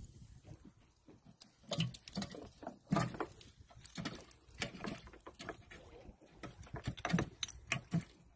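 Shrimp gill net being paid out over the wooden side of a small boat, with irregular light knocks, rustling and pattering as the net slides over the gunwale and drops into the sea.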